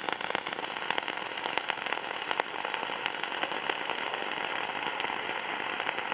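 Flux-cored arc welding: gas-shielded (dual-shield) flux core wire run without shielding gas, giving a steady crackling arc with many sharp pops.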